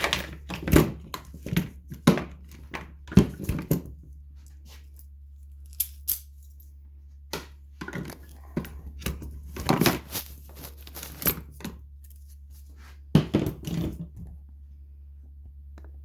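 Hand-worked ratchet tie-down: sharp clicks, rattles and knocks from its metal ratchet as the strap webbing is worked off the spool. A quick run of clicks comes in the first few seconds, a few scattered ones follow, and another cluster comes near the end.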